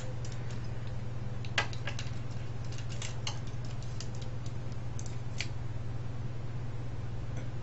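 Irregular light clicks and taps of plastic and metal parts from a dismantled Sony cassette recorder radio being handled, the sharpest about a second and a half in, over a steady low hum.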